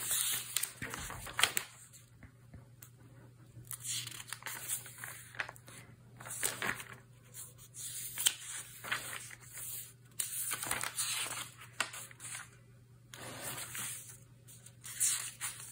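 Pages of a thin-paper Hobonichi Cousin planner, thickened with taped-in photos and washi tape, being turned one after another: irregular paper rustles and crinkles with short pauses between them.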